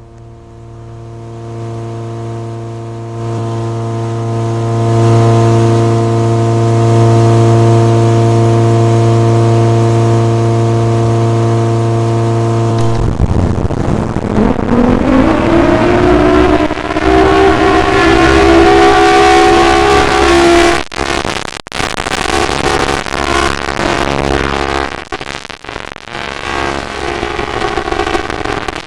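Outdoor tornado siren sounding a steady tone that swells louder over the first few seconds. About 13 s in it changes abruptly to a siren winding up, its pitch rising for several seconds and then holding, with a few brief dropouts near the end.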